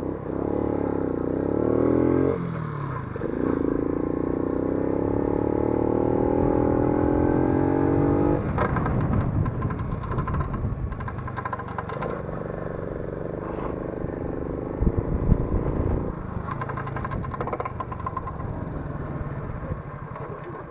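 Lifan 50 moped's small single-cylinder four-stroke engine revved up three times, pitch rising each time, with the drive chain clattering and knocking in between. With no chain guard fitted, the chain slaps and rubs against the fender: a hard metal-on-metal rubbing.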